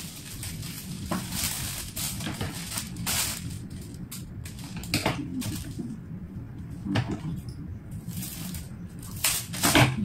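Clear plastic flower wrapping crinkling and leafy flower stems rustling as they are handled, in scattered short crackles.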